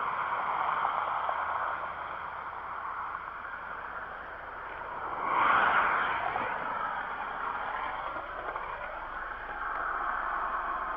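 Highway traffic noise, a steady rush of tyres on the road, with one vehicle passing close and swelling loudest about five to six seconds in.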